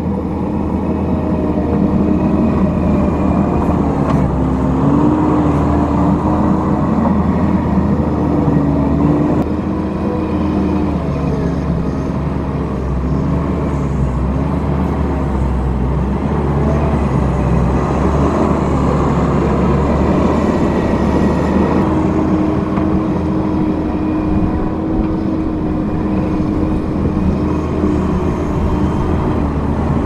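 Kubota compact track loader's diesel engine running under load as it pushes dirt, a steady hum whose pitch dips and recovers several times as the load changes.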